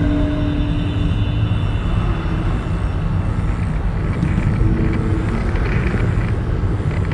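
A steady, dense low rumble with a few faint held tones above it that change pitch every second or two.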